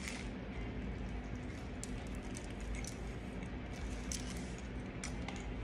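A person chewing a mouthful of chicken crepe, with short crinkles of the aluminium foil wrapper about once a second, over a steady low hum.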